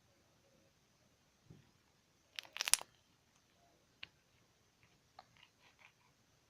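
Sticky slime being squeezed and stretched by hand, giving a quick cluster of sharp clicks and pops about two and a half seconds in, then a single click and a few fainter pops near the end.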